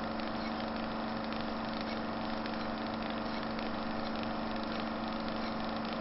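A steady, unchanging droning hum with a strong low tone.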